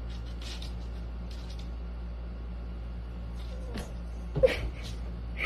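House cats playing on a wooden floor over a steady low electrical hum: faint scattered paw taps, then one loud thump about four and a half seconds in as a cat pounces and lands.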